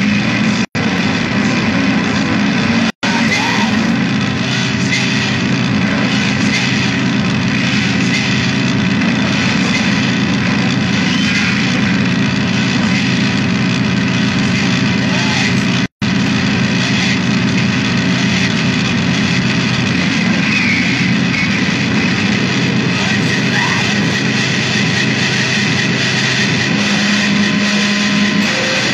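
Loud, dense noise music: a continuous wall of distorted sound over steady low drones. It cuts out to silence for an instant three times, twice in the first three seconds and once about midway.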